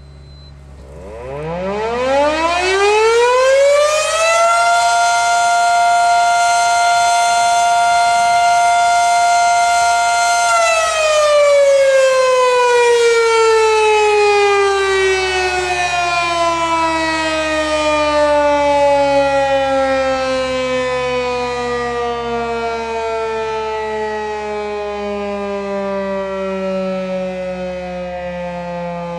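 Federal Electric Fedelcode Type Mach. 5 siren sounding its daily time-signal test: it winds up about a second in, holds one steady tone for about six seconds, then slowly winds down.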